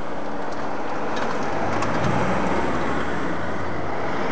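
Cars driving over a railway level crossing once the barriers are up: engine and tyre noise that builds about halfway through as a 4x4 comes across, with a few sharp clicks and a bird calling.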